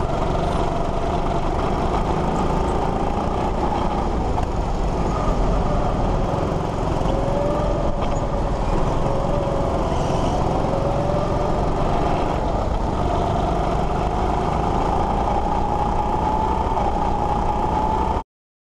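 Go-kart motor running at speed on the track, its pitch rising and falling with throttle through the corners over a steady rushing noise. The sound cuts off suddenly near the end.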